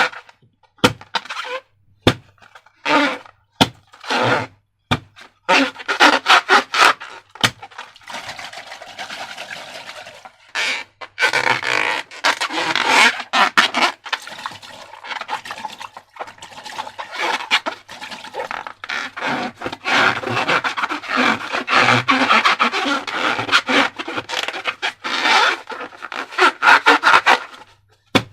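Slime and balloon materials handled close to the microphone: a few sharp clicks in the first seconds, then near-continuous squishing, crinkling and rubbing.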